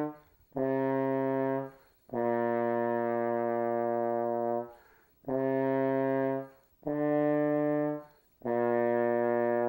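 Trombone playing a slow beginner exercise of five separate sustained notes with short breaks between them, the second held about twice as long as the others. The notes are drawn from just three pitches: B flat, C and D.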